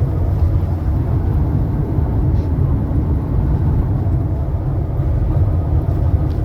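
Steady low rumble of road and engine noise inside a vehicle cruising at highway speed.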